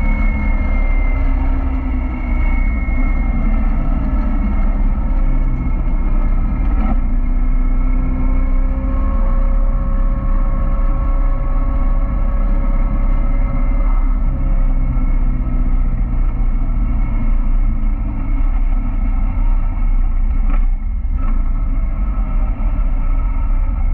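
Caterham Roadsport's four-cylinder engine running under way, its pitch drifting slowly up and down, over heavy wind and road rumble in the open cockpit. A few brief knocks, about seven seconds in and around twenty-one seconds.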